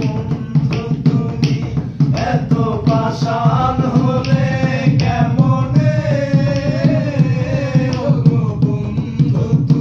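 Bengali folk song: a singer's voice over a steady, rhythmic hand-drum beat, the singing coming in about two seconds in.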